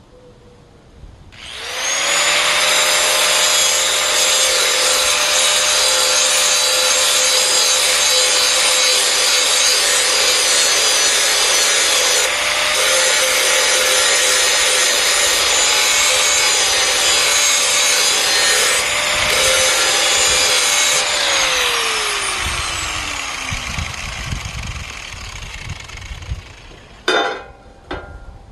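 An electric grinder starts up and grinds the edge of a Lawn-Boy 20-inch steel mower blade for about twenty seconds: a steady motor whine under a harsh grinding hiss, with two brief breaks. The motor is then switched off and winds down with a falling whine. A short clatter follows near the end.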